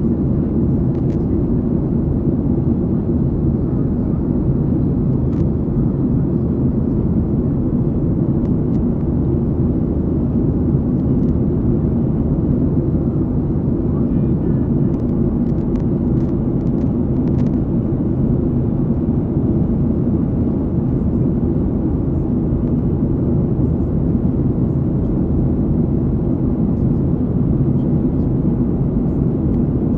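Steady low roar of a passenger jet's cabin in flight: engine and airflow noise heard from inside, at the window.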